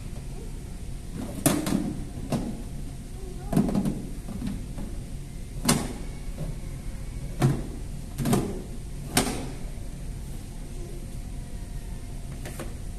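Plastic Step2 toy play kitchen being handled: its oven door and drawers opened and shut, giving a string of irregular knocks and clatters, about eight in all, the loudest near the start and in the middle.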